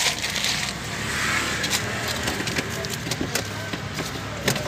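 Light clicks, knocks and rustling inside a car, with a low steady hum from the idling engine underneath.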